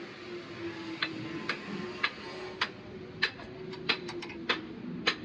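Repeated sharp taps that start about a second in and come roughly every half second, some in quick pairs, over a steady hum.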